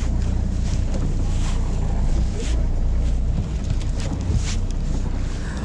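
Fishing charter boat's engine running with a steady low hum, with wind buffeting the microphone and a few short hissing gusts.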